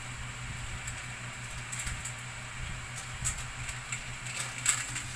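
A steady low hum with light clicks and crinkling sounds, which come more often in the second half.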